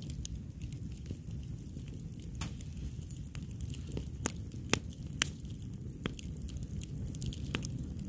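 Wood campfire burning, with many scattered sharp crackles and pops from the logs over a steady low rush of flame, two louder pops about halfway through.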